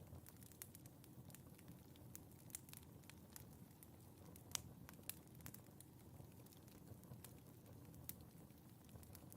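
Wood fire in a fireplace crackling, with irregular small pops over a low, soft rumble of the flames. A sharper pop comes about halfway through.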